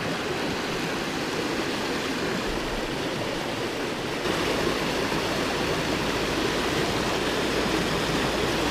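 River water rushing over rocks in shallow rapids: a steady rush that grows a little louder about four seconds in.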